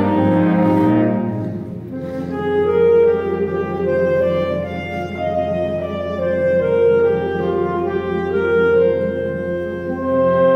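Saxophone ensemble playing sustained chords, the upper parts moving from note to note over a long held low note.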